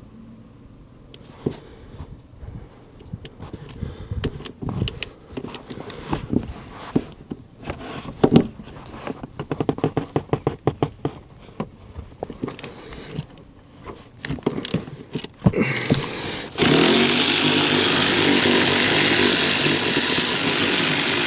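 Scattered clicks and metal knocks, then about sixteen seconds in an impact wrench starts up loud and runs continuously on a seat-rail bolt. The 10 mm bolt is stubborn and feels like it is stripping.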